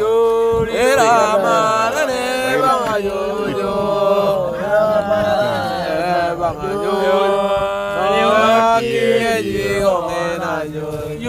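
Chant-like singing of an Otuho (Lotuko) song, a voice sliding and bending in pitch over a steadier held note.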